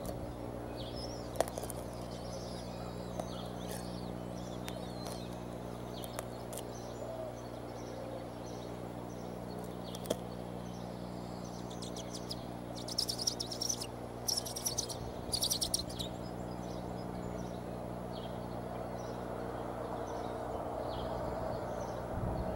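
Bald eagle chicks peeping in short high chirps, over a steady low hum. There is a cluster of louder, rapid calls about midway.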